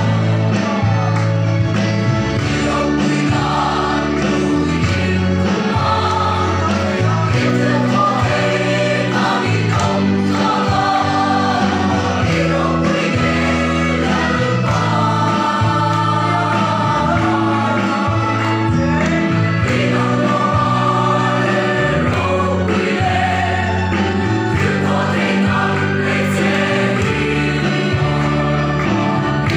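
Mixed choir of men and women singing a Mizo gospel song in harmony, with sustained low notes changing every second or so beneath the voices.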